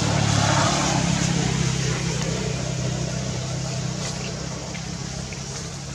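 A motor vehicle's engine droning steadily, gradually fading away.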